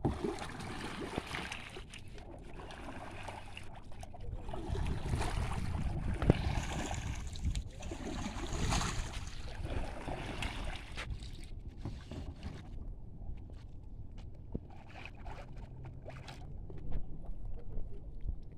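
Kayak paddle dipping and splashing in pond water, with wind rumbling on the microphone. The splashing fades after about twelve seconds, leaving only faint drips and clicks.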